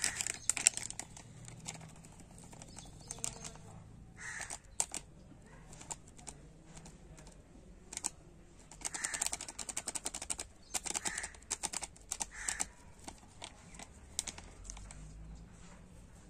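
Faint, scattered ticks and rustles of powder being added onto a paper sheet on a digital kitchen scale, with a bird calling briefly a few times.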